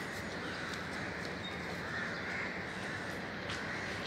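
Crows cawing off and on over a steady outdoor background hum.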